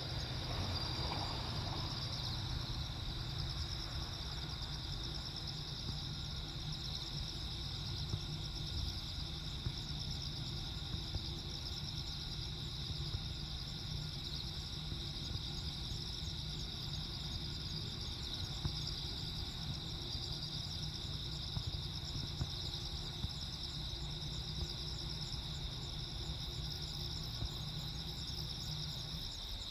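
Crickets chirping continuously in a steady high-pitched trill, over a steady low rumble.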